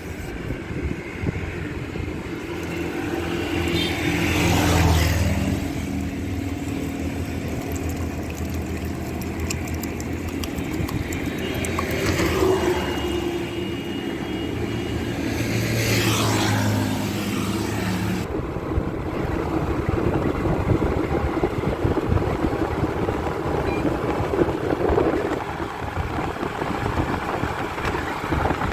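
Roadside traffic: three vehicles pass one after another over a steady engine hum. About two-thirds of the way through it changes to the even rushing of riding a Honda Activa scooter, engine running under wind and tyre noise.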